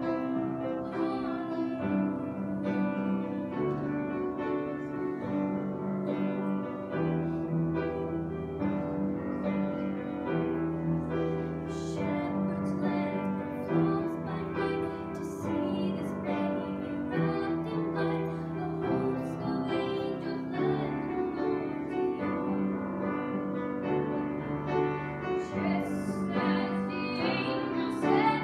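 A young woman singing a Christmas carol with piano accompaniment, in long held notes.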